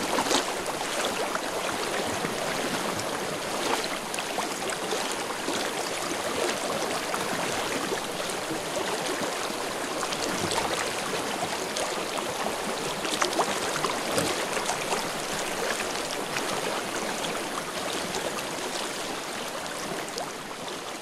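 Snowmelt-fed mountain river flowing over rocks: a steady wash of water with many small splashes and gurgles.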